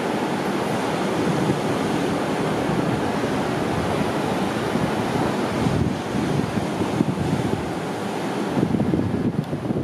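Surf breaking on a sandy beach: a steady wash of waves. Wind buffets the microphone, gustier near the end.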